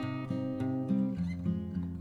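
Background music: a strummed acoustic guitar playing chords that change about every half second.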